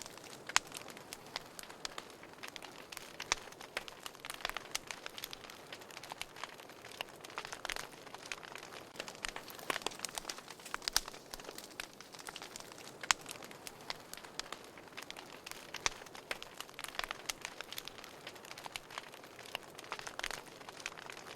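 Wood fire burning in a fireplace: a soft steady hiss with frequent irregular crackles and occasional sharper pops.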